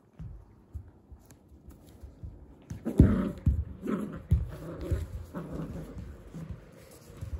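Kooikerhondje puppy playing rough with a soft doll toy, shaking it: a run of thumps from the toy and paws on the carpet starting about three seconds in, loudest at the first, mixed with short dog sounds.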